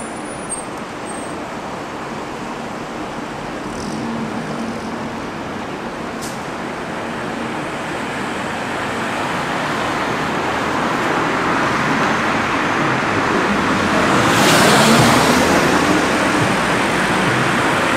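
Vintage single-deck coach's engine running as it pulls away, mixed with street traffic, growing louder. A car passes close about fifteen seconds in, the loudest moment.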